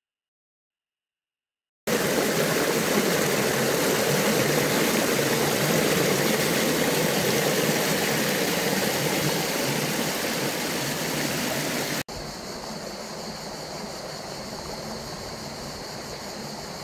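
Silent for the first two seconds. Then water rushes and splashes loudly down a stone-walled channel for about ten seconds. Near the end it cuts suddenly to a quieter flowing stream with a steady high-pitched hum over it.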